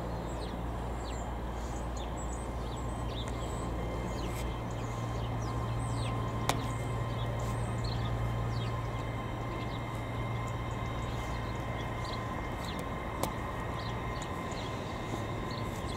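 CrossCountry diesel multiple unit running past, its underfloor diesel engines giving a steady low hum that swells towards the middle and eases off. Birds chirp throughout.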